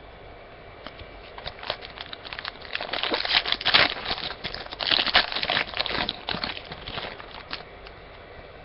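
Crinkling and tearing of a trading-card pack wrapper as it is handled and torn open, in dense crackles that peak twice in the middle.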